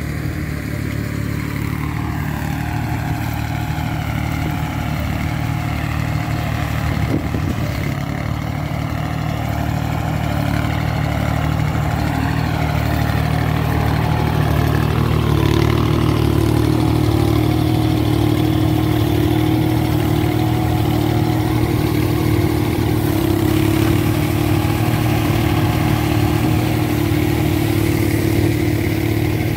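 VST Shakti MT 180 mini tractor's diesel engine running steadily while driving a thresher. A steady hum grows stronger about halfway through.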